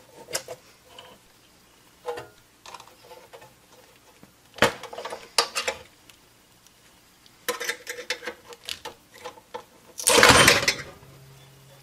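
Sheet-metal top cover of a server power supply being pried with a screwdriver and lifted: scattered metallic clicks and scrapes, with a louder rasping burst of about a second near the end as the cover comes free of the label that held it to the fans.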